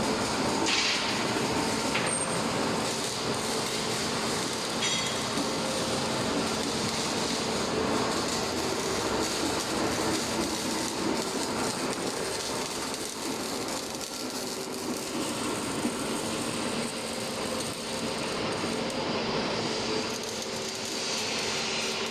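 1N65-5 heavy engine lathe running, with a steady mechanical hum from its drive and gearbox.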